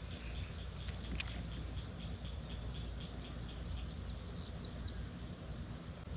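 Small birds chirping over and over in the background, above a steady low rumble, with a single sharp click about a second in.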